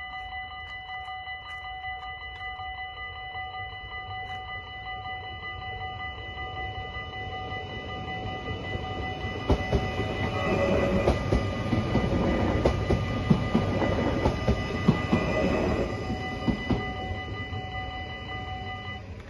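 Level-crossing warning bells ringing steadily while a Stadler FLIRT electric train passes about halfway through, its wheels clicking over the rails for around seven seconds. The bells stop shortly before the end.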